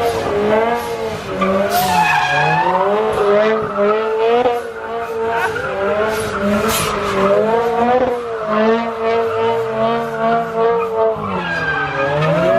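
A car spinning donuts: its engine revving up and down over and over while the rear tyres squeal and skid on the pavement.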